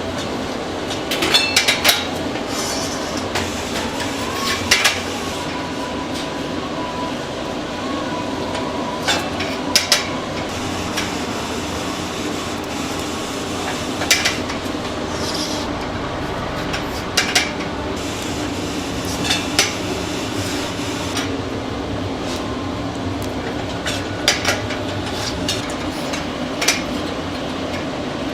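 Steady mechanical hum in a commercial kitchen, with sharp metal clinks and clatters every few seconds from pans and utensils being handled.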